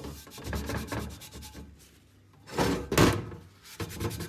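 Hand rubbing and scrubbing at a rusty cast iron pan in quick strokes. After a short pause there is a single heavier clunk about two and a half seconds in, followed by lighter knocks near the end.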